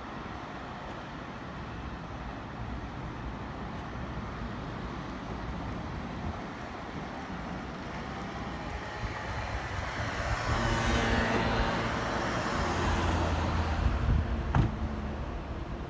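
Electric commuter train running on the nearby tracks. It grows louder about nine seconds in with a hum of several steady tones from its motors and wheel hiss, and a single sharp clack from the wheels on the rails near the end.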